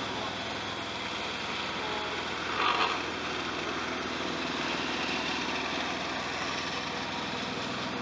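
Small tandem asphalt roller's diesel engine running steadily as the roller drives past on fresh asphalt, with other paving machinery running behind it. A brief louder sound breaks in about three seconds in.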